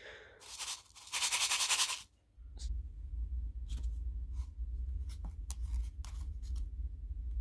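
Handling sounds of a plastic cup holding black powder granules. There is a rasping rustle about a second in, then scattered light clicks and taps as the cup is set on a digital kitchen scale, over a low steady hum.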